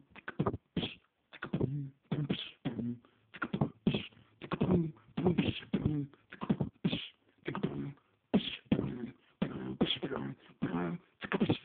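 Beatboxer imitating turntable scratching with his mouth: rapid short vocal strokes, several a second, some with a pitched tone, in a continuous rhythmic run.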